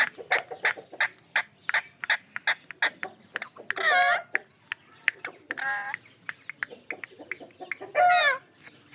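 Ringneck parakeet calling: a quick run of short, sharp clicks and chirps, broken by three longer drawn-out calls that bend in pitch at about four, six and eight seconds in.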